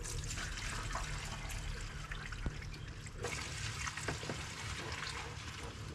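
Gasoline pouring steadily from a plastic gallon jug through a screened funnel into a sawmill's gas tank.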